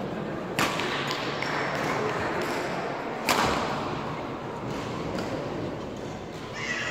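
Badminton rackets hitting a shuttlecock, two sharp cracks about half a second and three seconds in, the second louder and echoing in a large hall, with fainter hits between, over a steady murmur of voices.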